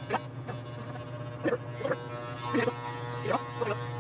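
Corded electric hair clippers buzzing steadily while shaving hair off a head, with short bursts of noise about every second as the blades pass through the hair.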